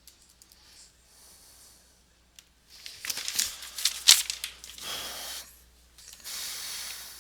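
Rustling and crinkling of wrapping in two stretches: a loud, crackly one starting about three seconds in, then a smoother one near the end.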